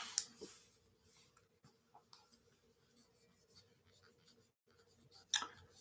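Faint light scratching and rubbing of hands handling things on a desk, over a faint steady hum. A short, louder noise about five seconds in.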